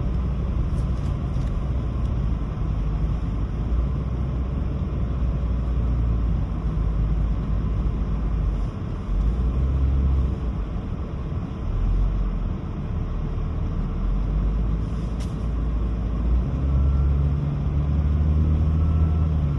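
Car driving on snow-covered streets: a steady low rumble of engine and tyres that swells and eases a little, with a few faint clicks.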